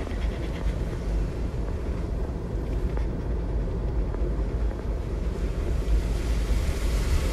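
Jeep driving slowly through floodwater: a steady low rumble with water washing around it.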